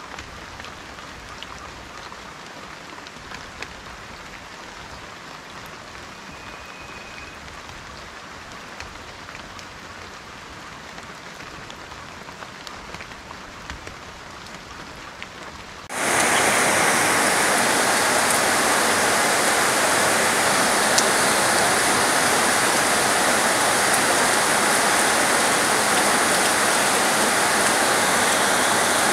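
Rain falling on foliage, at first moderate with scattered drop ticks, then about halfway through it switches suddenly to a much louder, dense heavy downpour.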